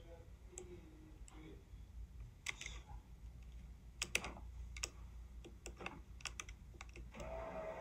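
Scattered light clicks and taps close to a phone's microphone, at a low level, with a faint steady tone coming in near the end.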